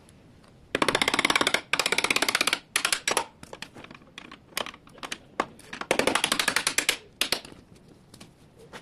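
Four bursts of fast, even rattling clicks, each under about a second, from a tool working a bolt, with a few single clicks between the bursts.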